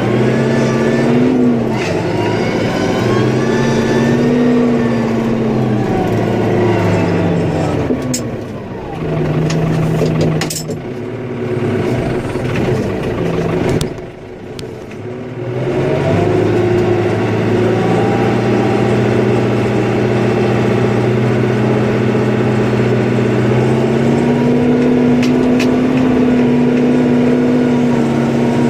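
Snowplow vehicle's engine revving up and easing off several times, dropping quieter twice about a third and halfway through, then held at steady revs for the rest.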